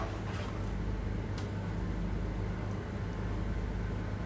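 Steady low hum with a faint hiss, a few faint ticks over it.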